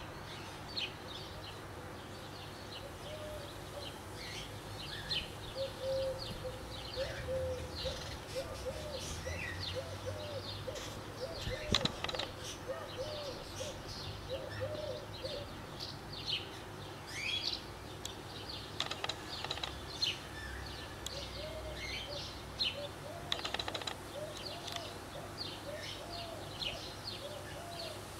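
Birds chirping: many short, high chirps throughout, joined by a lower note repeated in quick runs partway through and again later.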